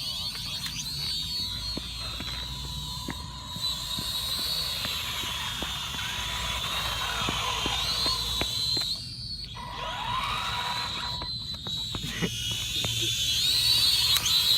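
Electric motor of a battery-powered RC car whining at a high pitch, rising and falling with the throttle. It cuts out briefly twice when the throttle is let off, with scattered light clicks.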